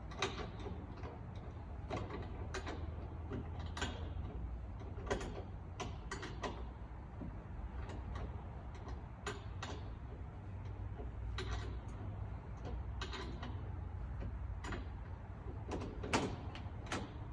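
A hand wrench on 13 mm bolts of a wooden shipping crate, giving irregular metallic clicks and clinks a second or more apart as the bolts are worked loose. A steady low hum runs underneath.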